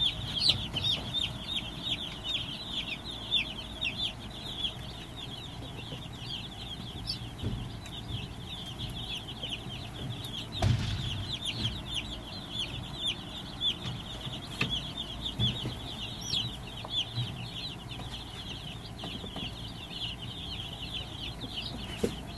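A flock of Cornish cross broiler chicks peeping continuously, many short high chirps overlapping. A single knock sounds about halfway through.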